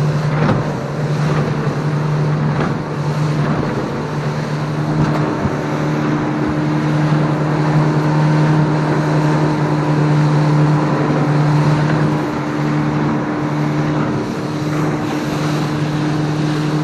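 A boat's engine running steadily underway: a low drone over wind and water noise, with a second, higher hum joining about five seconds in.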